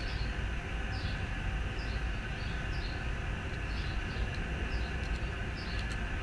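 Steady low outdoor rumble with a short, high chirp repeating roughly once a second.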